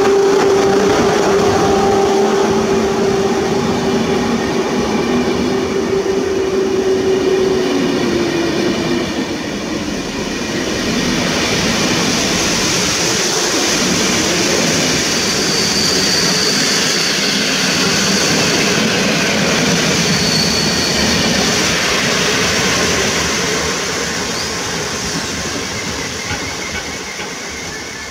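PKP Intercity passenger coaches rolling past on the station track, wheels clattering on the rails, with a high wheel squeal through the middle. The noise eases off near the end as the last coach goes by.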